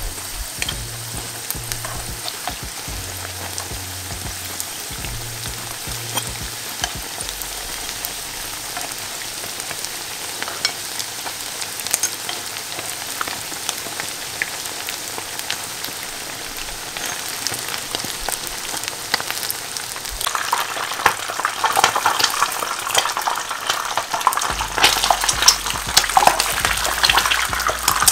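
Pişi dough pieces deep-frying in hot oil in a pan: a steady sizzle with scattered crackles and pops, growing louder and busier about two-thirds of the way through.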